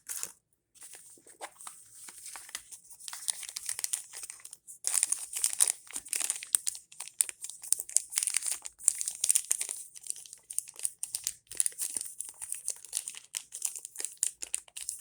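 Plastic blind-bag wrappers of toy mini figures being crinkled and torn open by hand: a dense, irregular crackling.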